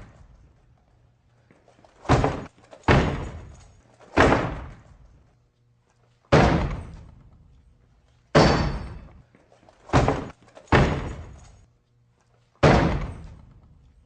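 A locked door fitted with a heavy-duty deadbolt is struck hard eight times at uneven intervals of about one to two seconds. Each blow is a heavy slam that rattles and dies away over about a second, and the door holds.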